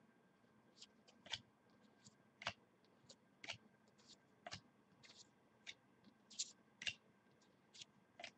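Faint, sharp clicks of football trading cards being handled one at a time, about one click a second.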